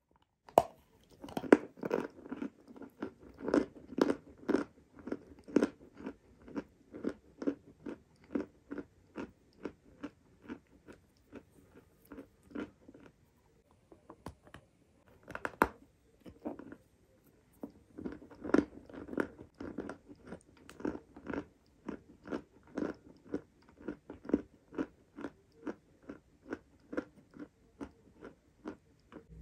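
A lump of lilac chalk bitten and chewed right at a clip-on microphone. A sharp snapping bite comes about half a second in, then steady crunching chews about twice a second, with another hard bite about halfway through.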